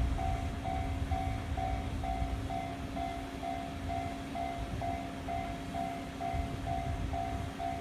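Japanese level-crossing warning bell ringing, an electronic two-note 'kan-kan' about twice a second. Under it the low rumble of a passing freight train eases over the first few seconds, with a steady low hum.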